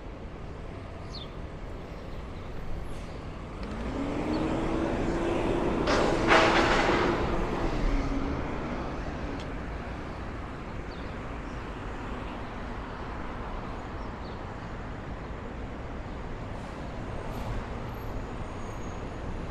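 Steady city street traffic. A heavy vehicle passes close by from about four seconds in: its engine whine rises in pitch, then holds steady, loudest around six seconds in, before it fades back into the traffic.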